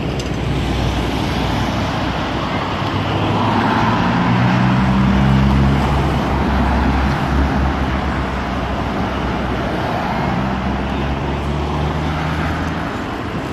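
Road traffic: cars passing close by on a city street, engine hum and tyre noise swelling to its loudest about five seconds in and easing off toward the end.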